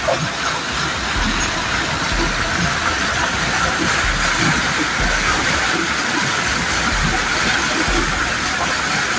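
Fast-flowing muddy stream water rushing and churning white around a metal structure, a loud steady roar with a low rumble under it.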